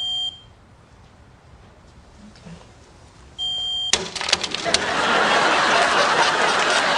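A smoke detector gives two short high-pitched beeps about three and a half seconds apart, its alarm still sounding even though it has been disconnected. Right after the second beep come a few sharp clicks, and then loud studio audience laughter swells up.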